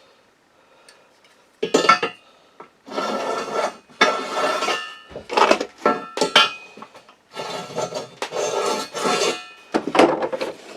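Metal tools clinking and scraping against steel, starting about a second and a half in, with several sharp clinks and longer scraping strokes, as bolt-hole centres are marked out on the steel wheel mounting plates.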